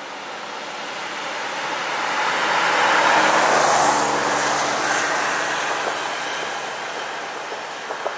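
A car passing close by on a paved road: tyre and engine noise swelling to a peak about three seconds in, then fading away.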